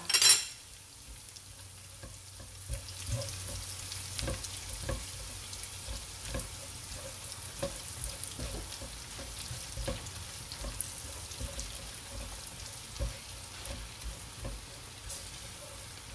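Garlic, ginger and chili sizzling in oil and melting butter in a nonstick pot, with a silicone spatula stirring and knocking against the pot every second or so. A sharp knock at the very start.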